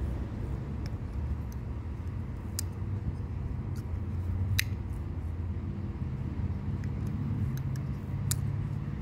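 A steady low rumble with about nine sharp, irregularly spaced clicks on top, the loudest about halfway through, from a small folding knife being handled.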